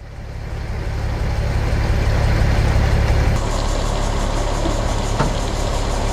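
Large engine running steadily with a low rumble, from a farm vehicle or machine; it fades in over the first couple of seconds.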